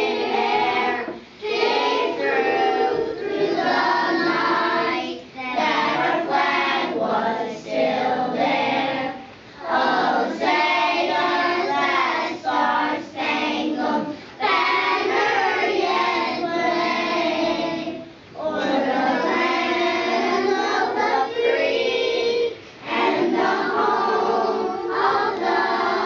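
A kindergarten class singing together in unison. The young voices sing in phrases of a few seconds, each followed by a short pause for breath.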